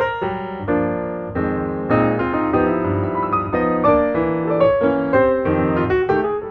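Background piano music: a run of quick notes over sustained chords.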